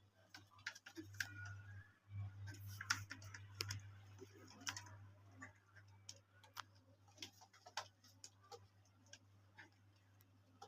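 Faint, scattered short clicks and taps over a low steady hum.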